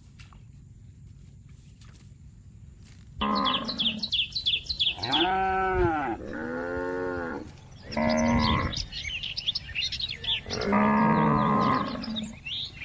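Cows mooing, about four long calls, each rising then falling in pitch, starting about three seconds in, with birds chirping quickly among them.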